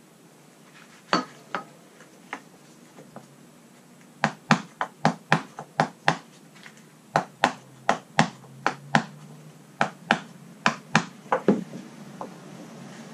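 Hand tool clicking and tapping on the fiberglass deck of a jet ski while old traction-mat adhesive is worked off. The sharp, irregular clicks start about a second in and become a quick run of roughly two a second from about four seconds in.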